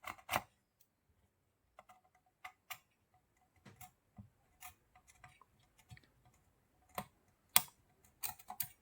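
Scattered light clicks and taps of small tools and parts being handled on an electronics workbench, a few sharper ones close together near the end.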